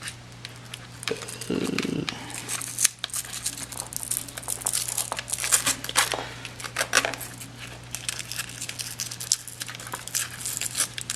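A hook-and-loop battery strap being threaded through slits in an RC truck's battery frame: irregular rustling, scraping and small clicks of the strap and frame being handled, over a steady low hum.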